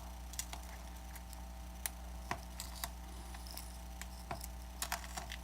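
Irregular small clicks and ticks of plastic pry tools working against an iPad Air 2's glass display and frame as the display assembly is prised loose, over a steady low hum.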